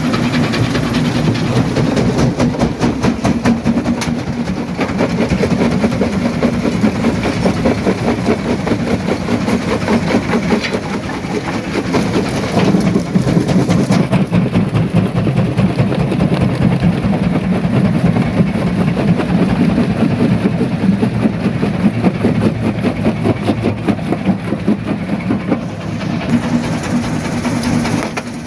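Primary jaw crusher crushing rock: a loud, steady low rumble with dense, continuous rattling and knocking of stone being broken.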